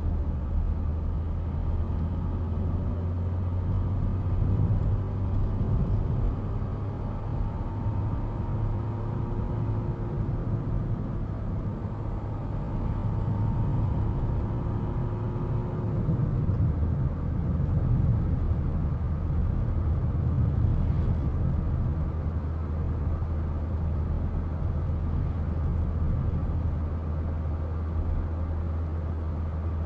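Steady road and engine noise inside a moving car's cabin: a continuous low rumble of tyres and engine at cruising speed, with a faint hum for several seconds in the middle.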